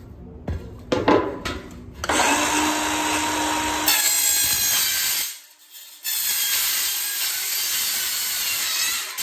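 Steel stud clattering as it is set down, a few sharp knocks, then a DeWalt DCS373B cordless metal-cutting circular saw cutting through a 20-gauge steel stud. The cut comes in two runs with a short break between them.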